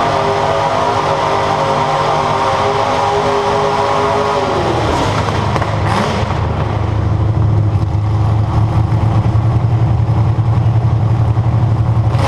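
Demolition derby car's engine heard from the cockpit, held at steady high revs, then dropping in pitch about four seconds in to a louder, rough, pulsing low-rev rumble. A sharp bang sounds once near the middle.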